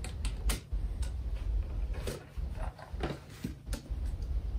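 Scattered light clicks, taps and knocks of a black leatherette-covered case being opened and handled on a table, with a small cardboard box taken out of it.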